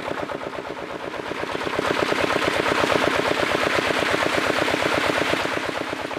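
Hybrid magur catfish crowding and thrashing at the surface of a shallow pond while being fed: a dense, rapid run of splashes and slaps with a hiss of churned water, growing louder about two seconds in.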